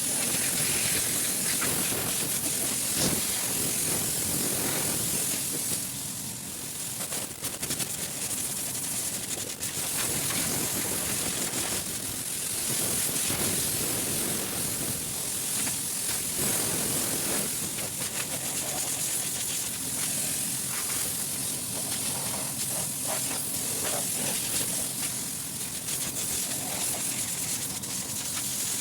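Compressed air blowing in a loud, steady hiss, cleaning a cold-storage refrigeration unit, with the force of the blast swelling and easing now and then.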